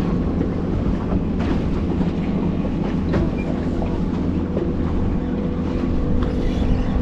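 Boat engine running steadily with a low, even drone, with a few faint clicks scattered through.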